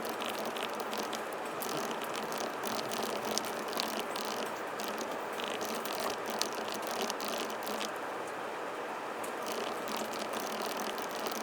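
Fast, continuous typing on a Groovestone GV10M-8K mechanical keyboard with hand-lubed low-noise Milky S switches: a dense run of small, rapid key clicks with no pauses.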